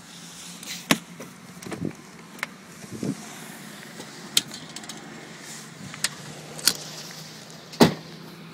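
Steady road and engine noise inside a moving car, with a constant low hum. Over it come scattered knocks and rubbing from a phone being handled against clothing, the loudest a sharp knock near the end.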